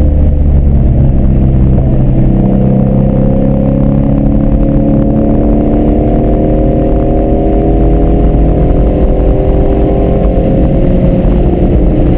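Ford Mustang Shelby GT350's 5.2-litre flat-plane-crank V8, heard from inside the cabin, pulling steadily on track. Its note rises slowly in pitch and eases slightly near the end.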